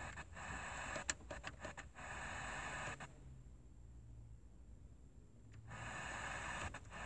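Ford 6000 CD car radio hissing with FM static between stations as it is tuned manually down the band. The hiss comes in two stretches, a long one early and a shorter one near the end, with short crackles among them and a quiet gap in the middle.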